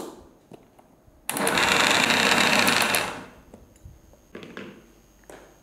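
Electric mixer grinder running in one burst of about two seconds, its steel jar grinding soaked moong dal, rice and green chillies to a coarse paste, then stopping. A couple of softer short sounds follow near the end.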